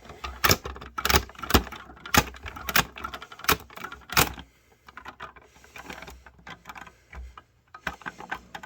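A run of sharp clicks and knocks, about a dozen closely spaced in the first four seconds, then fainter and sparser, with no alarm tone.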